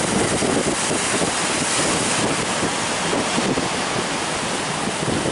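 Steady, loud noise of wind buffeting the microphone over breaking surf.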